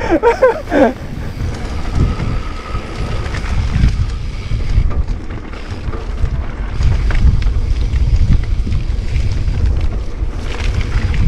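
Wind rushing over the camera microphone of a mountain biker riding fast down a trail: a steady low rumble that grows a little louder about seven seconds in. A short shouted exclamation is heard in the first second.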